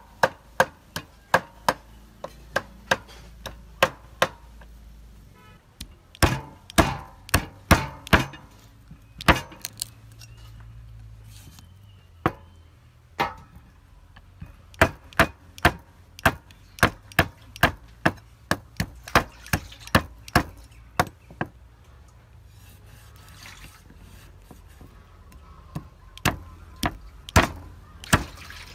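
Cleaver chopping raw chicken feet on a wooden chopping block: a long series of sharp chops, about two a second, in runs broken by short pauses.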